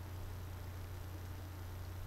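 Background noise only: a steady low hum with a faint even hiss, and nothing else happening.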